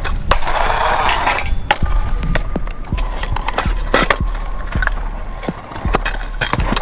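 Stunt scooter wheels rolling over rough concrete: a steady low rumble broken by frequent clacks and knocks as the wheels and deck hit cracks and ride up a concrete hump.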